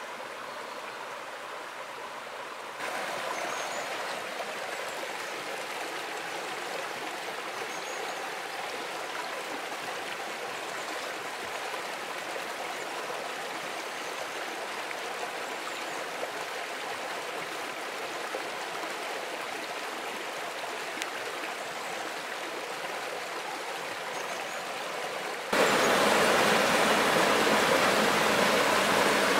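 Woodland stream running over stones, a steady rush of water. It gets a little louder about three seconds in. Near the end it jumps much louder to the fuller rush of a small cascade pouring between boulders.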